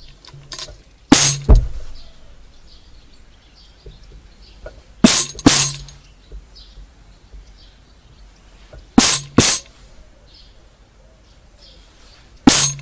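Hand-held jingle tambourine struck by hand: three pairs of quick strikes about four seconds apart, then a single strike near the end, each with a bright ringing of the metal jingles. Two strikes are the cue to clap the hands, one strike the cue to jump.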